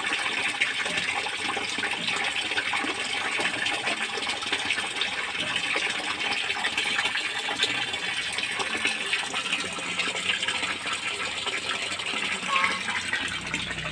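Steady running and splashing water in a fish-rearing tank, a continuous crackly wash.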